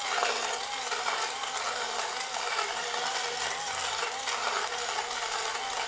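QiHui portable ice blender running, its blades crushing ice that rattles against the jar, with a faint rise and fall in pitch about once a second.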